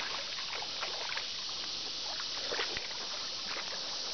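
Creek water rushing steadily, with a few brief faint clicks.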